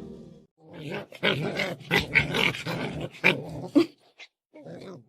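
A dog vocalizing in a run of short, pitch-bending grumbles and whines for about three seconds, then one brief sound near the end.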